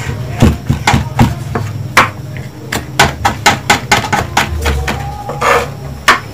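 Kitchen knife chopping small chili peppers on a wooden cutting board: a fast, uneven run of sharp knocks of the blade on the board, about three a second.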